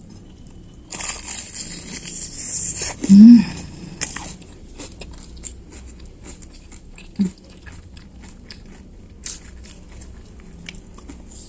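A bite into crispy deep-fried tofu with loud crunching for about two seconds, then a short hum. Close-up chewing follows, with many small crunches that fade toward the end.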